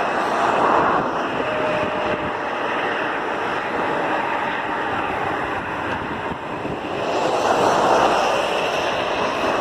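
Airbus A320 jet engines running: a steady rushing noise that swells about seven seconds in.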